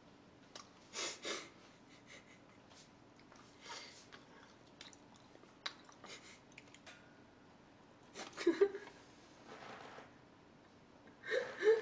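Close-miked chewing and mouth sounds of someone eating, with breaths and a few small clicks between soft bursts. About two-thirds of the way through comes a short, louder voiced sound.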